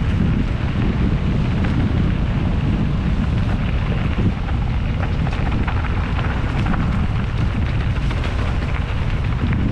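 Steady wind rush and low rumble on a helmet-mounted GoPro 8 as a mountain bike rides down a dirt trail, with scattered faint clicks and rattles.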